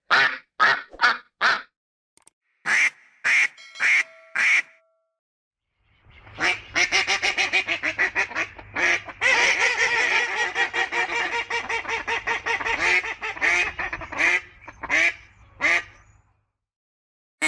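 Ducks quacking: a few evenly spaced quacks, a pause, then a long run of rapid, crowded quacking over a faint low hum.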